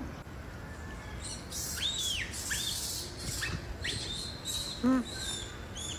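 Birds chirping, a run of short calls that rise and fall, over a steady hiss. One short lower-pitched call comes about five seconds in.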